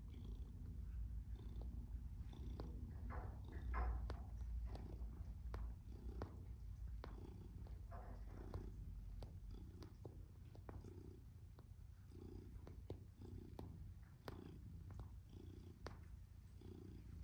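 Domestic shorthair cat purring steadily, a low rumble that swells and eases with each breath, with scattered faint clicks.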